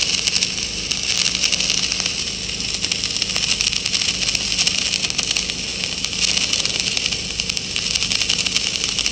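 CO2-shielded flux-cored arc welding on pipe: the arc keeps up a steady, dense crackle.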